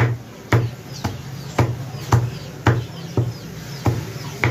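Steel meat cleaver chopping beef into hand-cut keema on a wooden butcher's block: steady chops about two a second, each a sharp knock with a dull thud under it.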